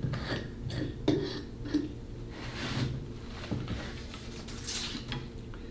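Light clicks, knocks and scrapes as the cap of a metal can of contact cement is unscrewed and its applicator brush is worked against the can, with a short scraping sound near the end.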